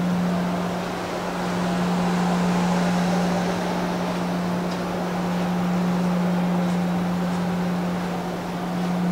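Steady hum of the car ferry Blue Dolphin's engines and onboard machinery as heard inside the passenger deck: one constant drone tone with an even rush of ventilation noise over it.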